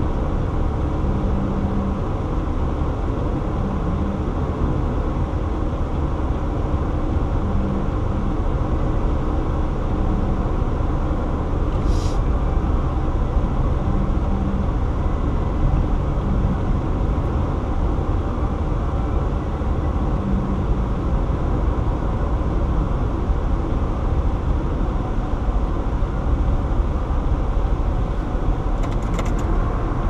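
Steady road noise from a car travelling at highway speed, heard inside the cabin: tyre roar and engine hum, with a brief faint click about twelve seconds in.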